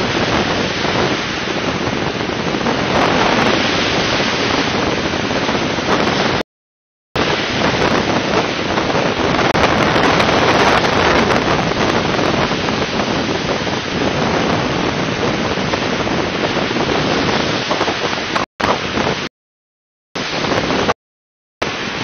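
Sea surf breaking on a pebble beach, a steady rushing wash with wind on the microphone. The sound cuts out to silence for under a second about six seconds in and three times near the end.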